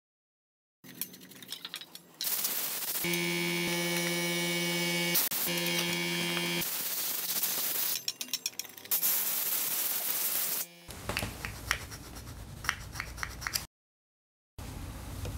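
A series of short workshop sounds from starter-motor parts being cleaned, split by abrupt cuts: stretches of loud hissing, a steady machine hum lasting a few seconds, and scrubbing and clicking as a part is brushed in a bowl of solvent.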